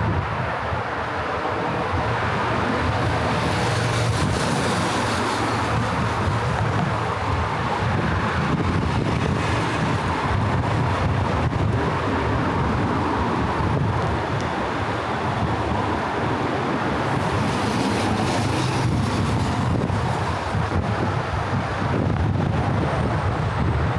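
Busy main-road traffic: a steady mix of passing cars and other vehicles, with some wind on the microphone. A brighter hiss swells twice, about three seconds in and again around eighteen seconds.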